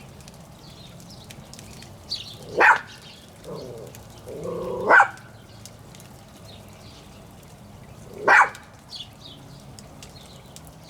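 Dog barking: three loud single barks a few seconds apart.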